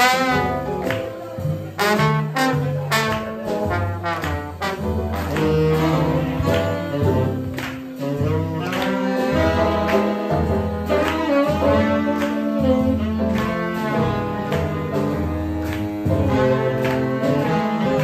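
A live small jazz band playing an up-tempo swing tune: trombone and saxophones over a moving upright bass line and piano, with sharp hits on a steady beat.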